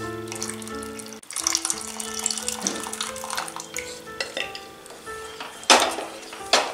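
Background music over liquid being poured from a pressure cooker into a pan of thick masala gravy. Near the end a spatula knocks against the pan a couple of times as the gravy is stirred.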